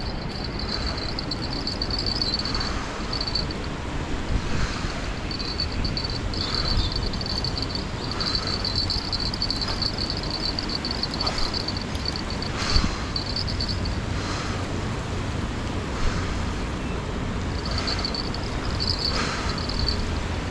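Wind buffeting the microphone over a steady low rumble, with a high, thin buzzing that switches on and off every few seconds.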